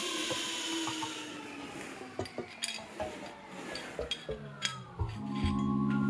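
Metal pieces clinking, knocking and scraping as they are handled, a scattering of sharp clicks, over a faint, slowly falling whine. Background music comes in near the end.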